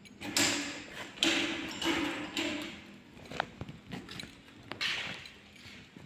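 Electric drum-type drain-cleaning machine running in short bursts, its motor and spinning cable starting and stopping: one burst about a second long, a longer one of about a second and a half, and a brief one near the end.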